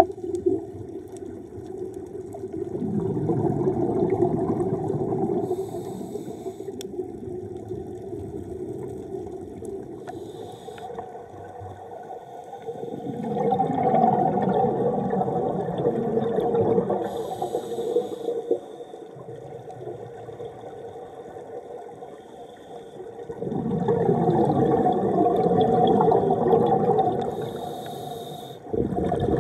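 Scuba regulator breathing heard underwater: three long bubbling exhalations about ten seconds apart, with short hisses of inhalation between them, over a steady underwater wash.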